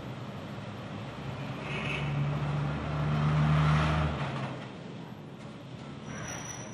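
Road traffic, with a large vehicle's engine passing close by. Its low hum and tyre noise swell to a peak about three and a half seconds in, then fall away.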